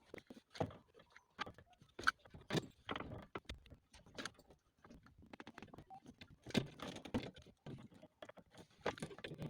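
Irregular clinks, knocks and short rattles of hand tools and metal parts being handled while a car's steering column is reassembled.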